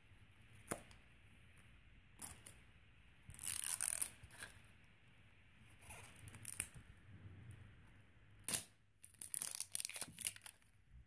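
Thin printed plastic wrapper being torn and peeled off an L.O.L. Surprise toy ball, in irregular crinkly tearing bursts, with the ball's plastic shell being pulled apart toward the end.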